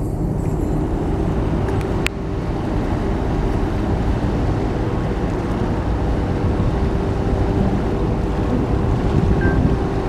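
Steady low rumble of the 400 m container ship EVER AIM under way close by, with wind noise on the microphone and a steady hum over it; a brief click about two seconds in.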